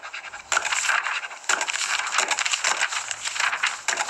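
Paper rustling and being handled close to the microphone: an irregular run of crisp, scratchy noises that grows louder about half a second in.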